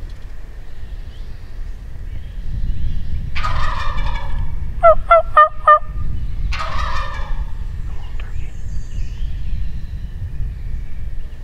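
Wild turkey gobbler gobbling twice, a few seconds apart, with a quick run of four sharp, loud yelping notes between the gobbles.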